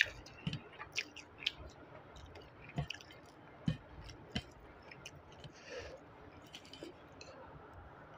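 Fingers squishing and mixing rice with mint chutney on a steel plate, with scattered sharp clicks and mouth chewing sounds.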